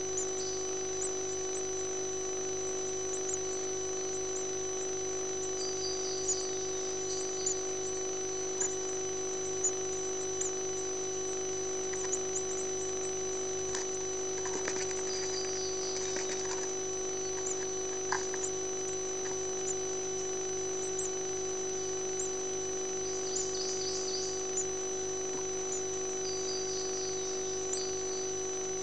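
Steady electronic hum and whine from a nest-box camera. Over it come a few short clusters of faint, high nestling begging peeps.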